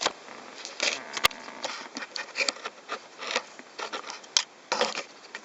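Plastic shift-console trim of a 2006 Mazda 3 scraping and clicking as its retaining clips are pinched and the panel is worked loose. It makes a run of irregular small scrapes and taps, with one sharp click a little over a second in.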